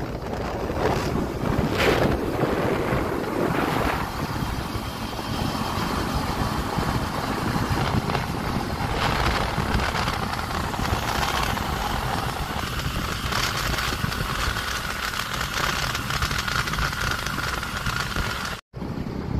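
Wind buffeting the microphone on a moving two-wheeler, over the running engines and tyre noise of the motorcycles riding side by side on the road. The sound cuts out for a moment near the end.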